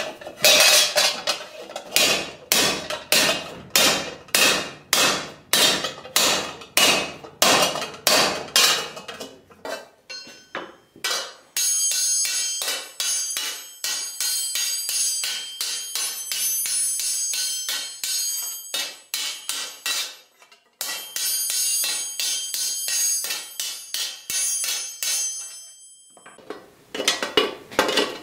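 Hand hammer striking a sheet-steel bascinet half held over a stake. Sharp, loud blows come about two a second for the first ten seconds. Then a long run of quicker, lighter strikes follows, with the steel ringing high, and after a brief pause a few more blows come near the end.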